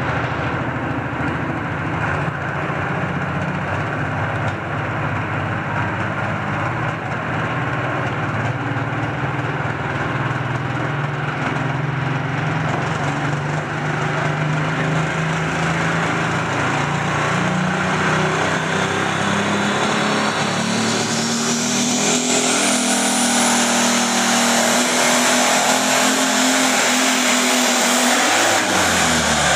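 Turbocharged diesel engine of a Case light pro stock pulling tractor running hooked to the sled, with a high whine climbing steadily for several seconds as the turbo builds boost. Near the end the engine revs up sharply as the tractor launches into the pull.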